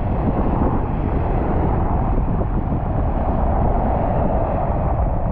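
Strong wind buffeting the microphone: a loud, steady, fluttering rumble with a hiss above it.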